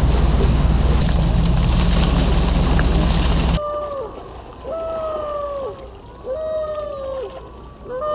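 A boat's engine runs with a steady low hum under loud wind and water noise, which cuts off abruptly a few seconds in. After it come a series of long wailing calls, each holding one pitch and then dropping at the end, about one every second and a half.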